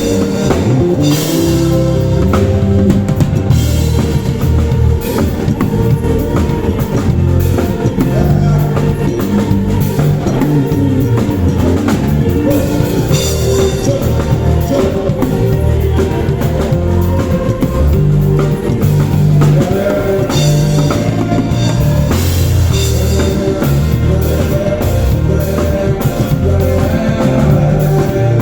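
Live band playing a song at a sound check: drum kit, bass and guitar, with a steady beat.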